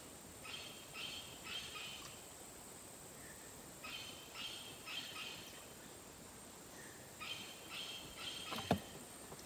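An animal calling from the swamp forest in repeated groups of three or four short notes, a group about every three seconds. A single sharp snap sounds near the end.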